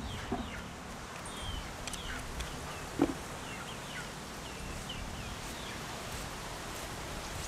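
Birds chirping in many short, high calls over a faint outdoor background, with one sharp knock about three seconds in.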